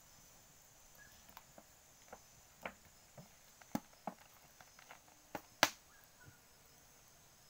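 Small wood cooking fire crackling: scattered, irregular sharp pops and snaps, the loudest about three quarters of the way through.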